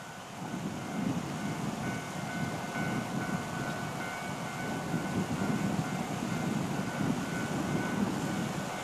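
Distant KiHa 56 diesel railcar train approaching out of sight: a low rumble that grows a little louder about a second in, with a faint steady whine over it.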